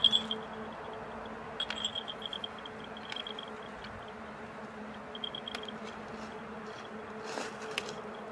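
Small cat collar bells jingling lightly in short bursts as the cats stir, near the start, around two seconds in and again around five seconds in, over a steady low hum.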